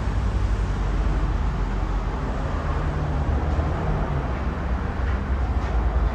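31¼-inch Casablanca Wailea ceiling fan running: a steady low motor hum under an even rush of air from the blades.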